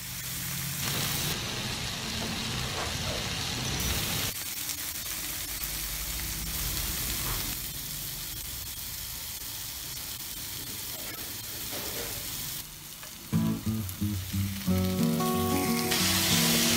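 Yellowfin tuna steaks sizzling in oil on a grill pan, a steady frying hiss. Music comes in over it near the end.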